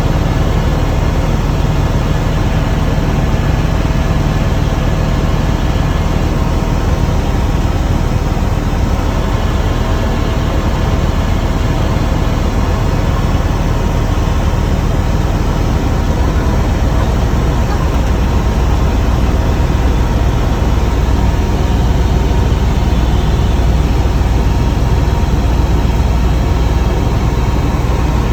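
Helicopter in flight: a loud, steady drone of engine and rotor noise, with the low rumble growing a little stronger about halfway through.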